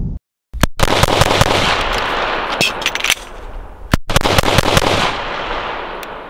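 Semi-automatic pistol fired rapidly, shot after shot in quick succession, in two runs split by a brief break about four seconds in, trailing off near the end.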